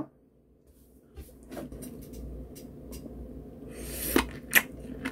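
Biting into a whole peeled lemon: faint wet mouth and handling sounds, then a brief burst of juicy squishing and sharp smacks about four seconds in.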